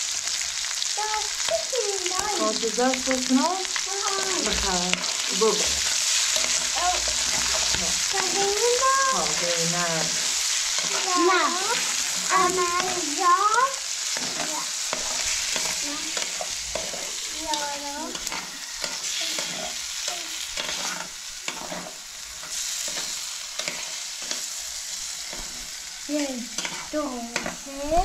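Food sizzling and frying in a pan with stirring, a steady hiss throughout. Short wavering pitched sounds come over it, loudest around the middle and again near the end.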